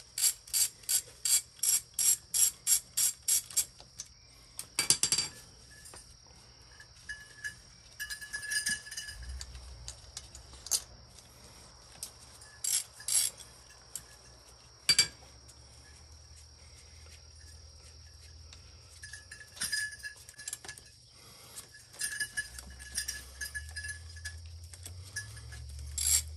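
Hand ratchet clicking as the 8 mm stator-cover bolts of a Suzuki GSX-R 600 engine are backed out. The clicks come in a quick even run at first, about four a second. After that they are scattered, with a couple of sharper metallic knocks, and a short run of clicking comes back near the end.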